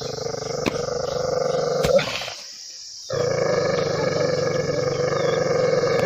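Dog growling in long, continuous rumbles. The growl breaks off about two seconds in and starts again about a second later.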